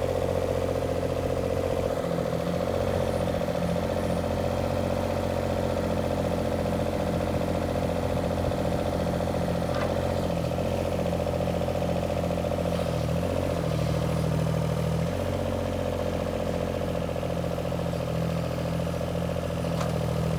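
IHI mini excavator's diesel engine running steadily, with a brief change in its low note about 14 seconds in.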